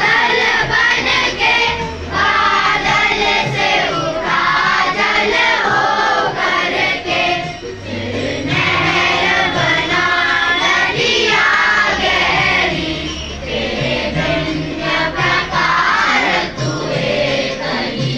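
A large group of children singing a prayer together in unison.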